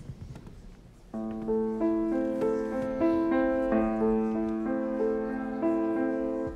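Grand piano starting about a second in, playing an introduction of even broken-chord notes over a held low note.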